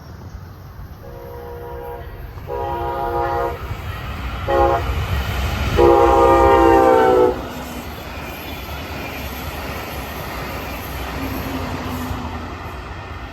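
Diesel freight locomotive's multi-note air horn sounding the grade-crossing signal: long, long, short, then a final long blast that is the loudest. The train's low rumble runs under the blasts and carries on after them.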